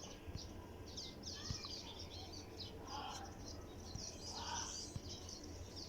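Birds chirping in the background, many short chirps over a faint low hum, with a few small ticks.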